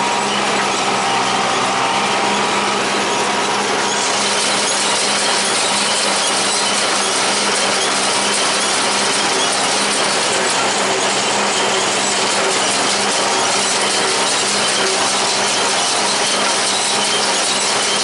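John Deere 336 small square baler running behind a John Deere 3020 tractor: the pickup and plunger make a steady, dense mechanical clatter over the tractor's even engine note. The clatter turns brighter and harsher about four seconds in.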